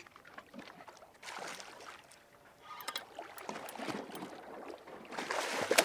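Water splashing and sloshing against the boat's side in two swells, the second longer and louder, while a hooked shark is brought alongside at the surface. A few sharp clicks are mixed in.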